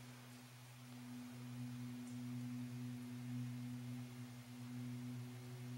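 A steady low hum at two pitches an octave apart, with a fainter tone above, wavering slightly in loudness.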